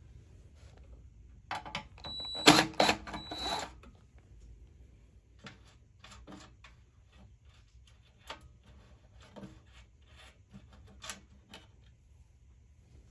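Small metal parts and hand tools clinking and rattling against the furnace's metal housing during disassembly: a burst of clattering with a ringing metallic clink about two seconds in, then scattered light clicks and taps.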